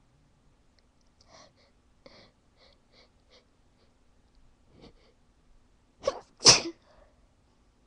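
A person sneezing. First comes a string of short, quiet sniffs and catches of breath, then about six seconds in two sharp bursts close together, the second a loud full sneeze: an attempt to stifle the sneezes that fails.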